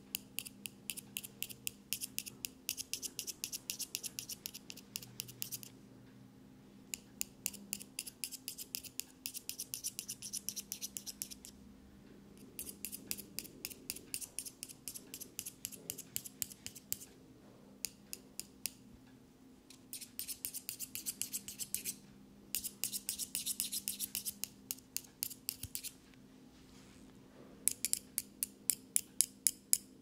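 Thin metal tools clicked and scraped against each other close to the ear as an ASMR trigger. They make rapid, sharp metallic clicks in runs of a few seconds, with short pauses between runs.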